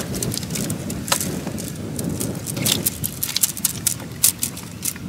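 Climbing perch being shaken out of a bamboo fish trap into a plastic basin: scattered, irregular clicks and taps of the bamboo slats and fish flapping against the plastic, over a steady low background rumble.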